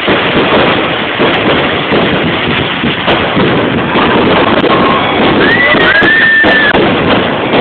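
Fireworks going off in a dense, continuous barrage of bangs and crackles. A high tone rises and holds briefly near the end.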